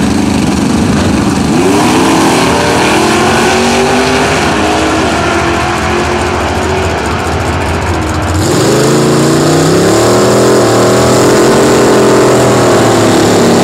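Two drag-racing cars accelerating hard at full throttle down the strip, the loud engine note climbing in pitch and dropping back at gear changes. A louder surge of engine sound comes in about eight seconds in.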